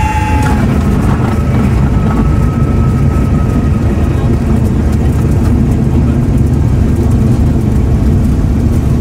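Cessna 172 light aircraft's piston engine and propeller, a steady loud drone heard from on board during the landing.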